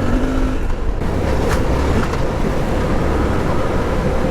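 Suzuki V-Strom 800DE's parallel-twin engine running steadily under way on a gravel forest track, with wind and tyre-on-gravel noise. Two short sharp ticks, about a second and a half and two seconds in, are stones flicked up against the bash plate.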